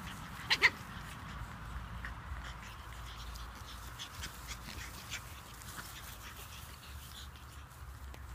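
Pug puppies yipping and squeaking as they play, with two sharp, loud yips about half a second in, then fainter little yips and whines.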